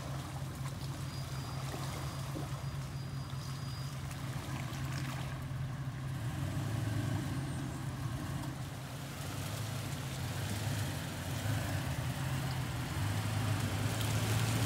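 4x4 truck engine running at low revs: a steady low drone whose pitch shifts a little a few times.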